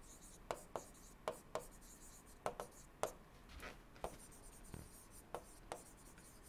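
Stylus tapping and scratching on a tablet screen while handwriting: faint, irregular clicks, about a dozen, as each pen stroke lands.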